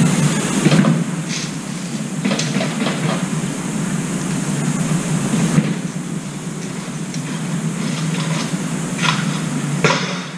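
Scattered light clicks of an oriental turtle dove's beak pecking sunflower seeds from a metal tray, over a steady low rumble.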